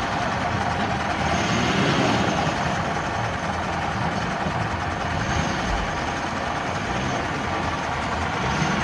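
Nissan Patrol SUV engine running hard under heavy throttle while its tyres spin and dig in loose dirt, a steady dense noise without clear pitch changes.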